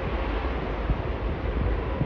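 Steady rumbling roar of a jet airliner coming in to land, with a faint steady tone in it and wind buffeting the microphone.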